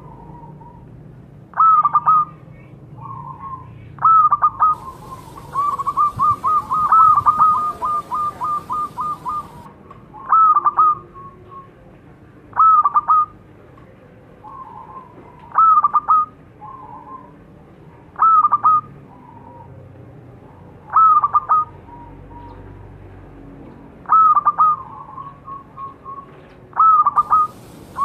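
Zebra dove (perkutut) calling in short staccato cooing phrases, repeated about every two to three seconds, with a longer run of quick repeated notes from about five to nine and a half seconds in.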